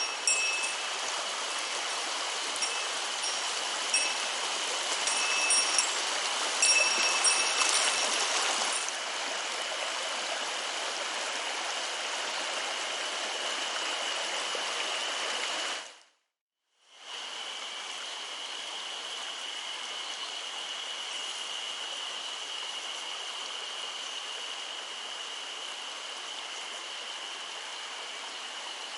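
Mountain stream water rushing steadily, with a thin steady high tone running through it. During the first nine seconds, short high-pitched chirps come every second or so. The sound cuts out completely for about a second around the middle, then the stream returns a little quieter.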